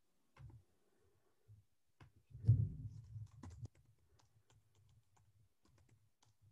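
Faint typing and clicking on a computer keyboard: a scatter of short, irregular clicks, with a soft low bump about two and a half seconds in.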